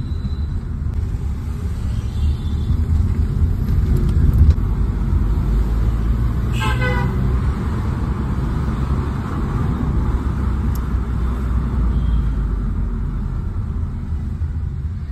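Steady deep rumble of road and engine noise inside a moving Hyundai i20 N Line, with one short car horn honk about six and a half seconds in.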